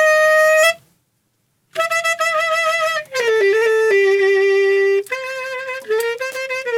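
Saxophone played in speech-like phrases, imitating a talking voice answering a question: a held note that cuts off about a second in, then after a short silence a phrase of gliding, wavering notes that step downward and break into short choppy notes near the end.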